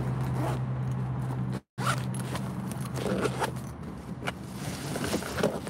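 Steady low hum inside a car cabin, with scattered rustling and short zipper-like strokes as things are handled. The sound cuts out completely for a moment a little under two seconds in.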